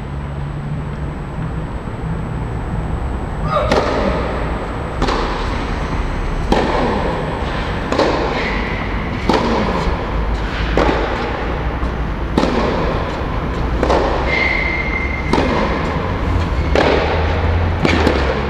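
Tennis ball struck back and forth by rackets in a rally, a sharp pock about every second and a half, echoing in the enclosed hall. The hits start a few seconds in after a stretch of low hum, about eleven in all.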